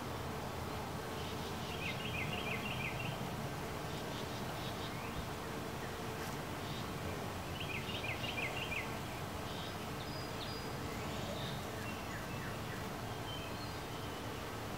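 Steady hum of honeybees over an open hive. A bird gives a short run of rapid chirps twice, about two seconds in and again about eight seconds in, with a few fainter chirps later.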